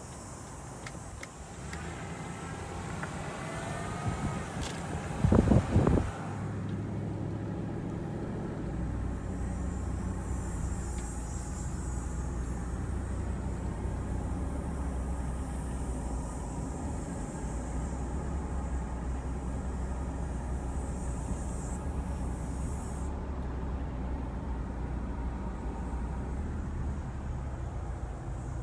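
Engine and road noise of a car driving slowly, heard from inside the cabin: a steady low rumble. A brief burst of loud bumps comes about five seconds in, then the sound settles to an even drone.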